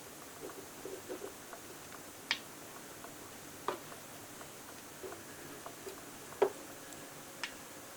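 Scattered soft ticks and taps, with four sharper clicks at irregular intervals, the loudest about two-thirds of the way in, over a faint steady hiss.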